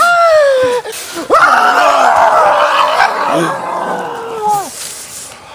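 A man's staged death scream: a short falling cry, then a long, drawn-out wail that sinks in pitch and fades out.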